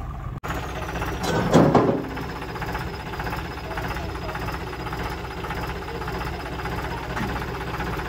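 Tractor diesel engine idling steadily, with a short louder burst about a second and a half in.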